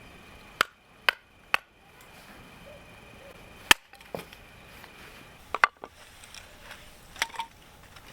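Firewood being split by batoning: a series of sharp wooden knocks at irregular intervals, one loud strike near the middle.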